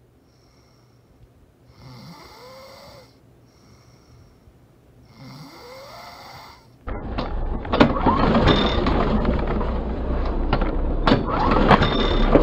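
A person snoring twice, each snore about a second and a half long. About seven seconds in, a walk-behind lawn mower's engine cuts in loudly and runs steadily.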